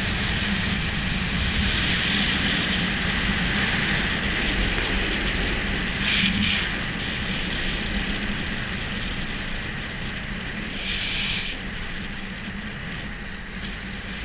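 Longboard wheels rolling fast on asphalt during a downhill run, a steady rumble with wind rushing over the microphone. Two brief louder hisses come about six and eleven seconds in.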